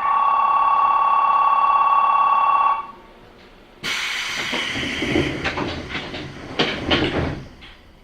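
A station departure signal sounding one steady pitched tone for nearly three seconds while the train stands at the platform. About a second later the doors close: a rushing hiss with several sharp knocks.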